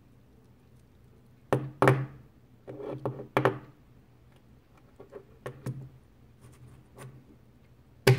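White plastic fidget spinner knocking and clicking against a wooden desk top. There are a few sharp knocks about a second and a half in and again around three seconds, lighter clicks after that, and the loudest knock near the end as the spinner comes down onto the desk.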